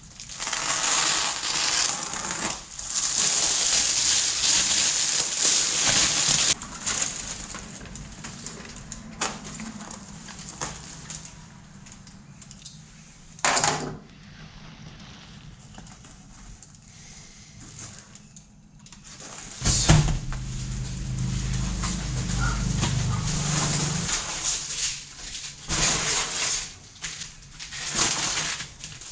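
Crackling and crinkling of the plastic wrapper as it is cut and pulled off a roll of foam underlayment, loudest in the first six seconds and again in short bursts near the end. A single sharp click comes about halfway through, and a louder low rumble lasts about four seconds around two-thirds of the way in.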